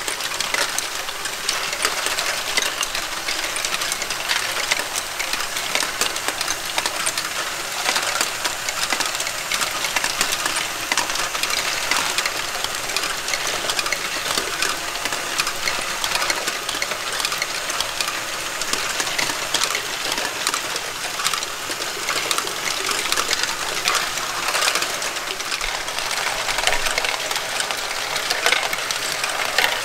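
Lego Great Ball Contraption modules running: many small plastic balls clicking and clattering as they are lifted, dropped and rolled through plastic Lego mechanisms, over a steady whir of Lego motors and gears.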